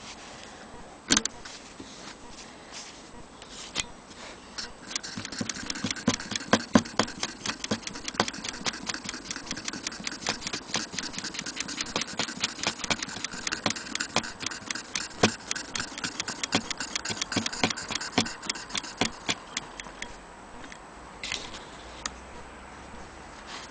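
Willcox & Gibbs hand-crank chain-stitch sewing machine stitching through fabric: a rapid, even clicking of the needle mechanism that starts about five seconds in and stops a few seconds before the end. A single sharp click sounds about a second in.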